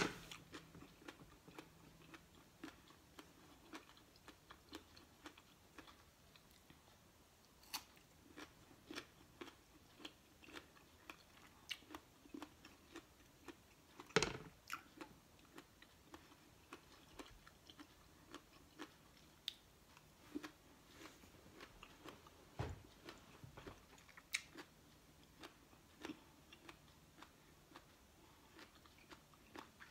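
Faint close-up chewing and crunching of raw fruit and vegetable slices, with scattered small clicks, a sharper click about 14 seconds in and a low thump near 23 seconds.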